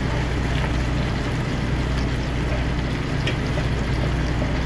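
Seasoned goat meat sizzling as it browns in oil in an electric skillet, turned with a fork that clicks against the pan a few times. Underneath runs the steady low hum of the truck's idling engine, the loudest sound.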